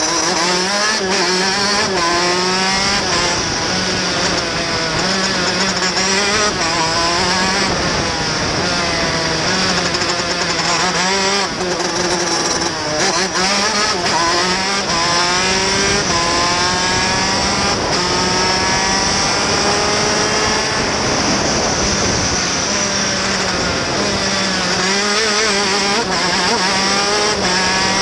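TM K8 125 cc two-stroke engine of a KZ shifter kart at racing pace, its pitch climbing through the gears and dropping back at each shift, again and again. Around the middle it eases off briefly, as for a corner, then climbs again.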